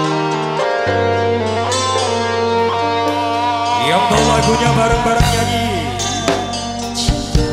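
Live band playing the instrumental intro of a dangdut song: electric guitars, bass guitar and keyboard under a held lead melody that slides in pitch about four seconds in, with cymbal hits near the end.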